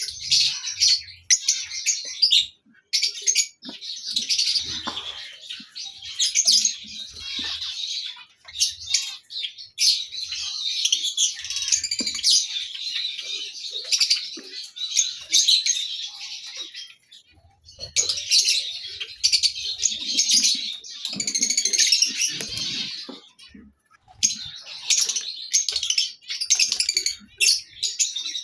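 A group of lovebirds chattering with constant shrill chirps, broken by short pauses a few times.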